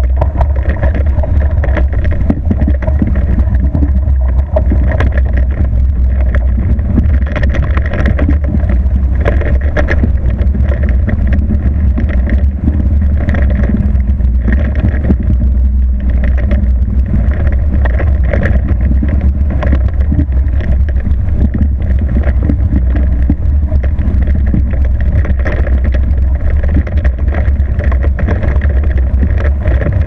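Hobie 20 catamaran sailing fast on one hull: loud, steady rush of wind buffeting the microphone and water tearing along the hull, with a steady hum running underneath.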